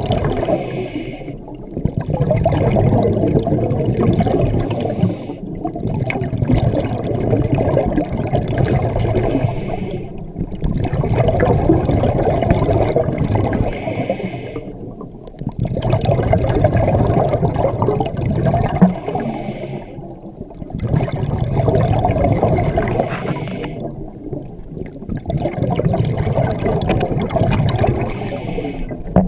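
Scuba diver breathing through a regulator underwater. Long gurgling rushes of exhaled bubbles alternate with short hissing inhalations, about one breath every four to five seconds.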